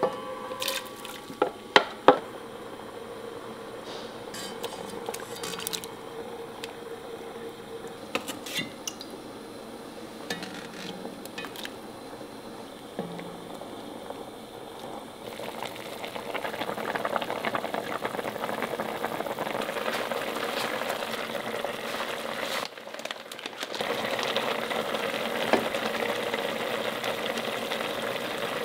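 A few sharp clinks of a spoon against a container and pot as shredded beef goes in, then scattered light scrapes of stirring. About halfway through, soy-braised beef and eggs start bubbling at a simmer in the pot, a steady louder bubbling that dips out briefly and comes back.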